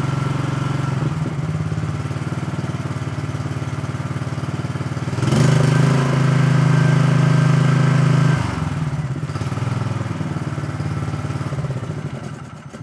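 Troy-Bilt TB30 riding mower's MTD Powermore 382cc single-cylinder engine running steadily on its freshly cleaned carburetor. About five seconds in it speeds up and gets louder for about three seconds, then settles back to its earlier speed, and it dies away near the end. It runs smoothly, "like a champ".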